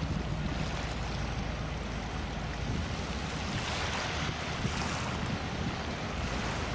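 Wind on the microphone and small waves washing onto a shingle beach, over a low, steady engine hum from the passing freighter and pilot boat. The wash is loudest about four seconds in.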